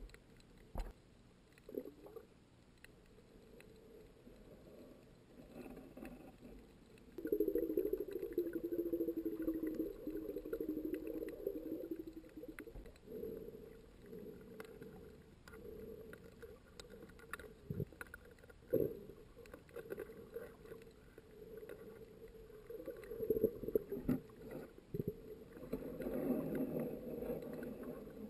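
Underwater sound picked up by a submerged camera: a low, muffled murmur of moving water that swells for several seconds twice, with a few scattered sharp clicks.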